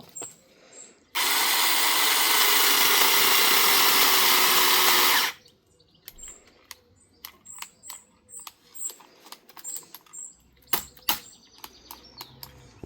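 Cordless mini chainsaw with a 6-inch bar running for about four seconds, its pitch sagging slightly, then stopping abruptly as the battery goes flat. Scattered sharp clicks and knocks follow.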